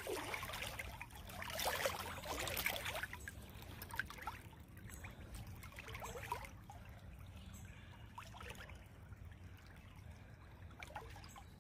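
Shallow creek water sloshing and splashing around someone wading through it, louder for the first three seconds, then softer trickling with small scattered splashes.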